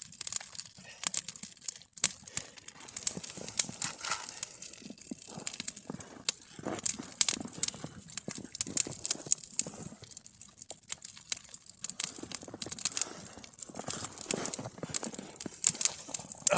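Wood campfire crackling, with many irregular sharp snaps and pops.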